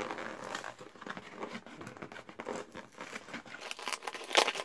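Paper shipping label and cardboard of an Amazon mailer crinkling and tearing as they are pulled open by hand, in irregular crackles with a louder burst of tearing near the end.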